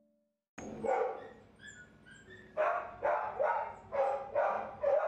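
A dog barking: one bark, a few fainter short calls, then, a bit past halfway, a run of barks about two a second.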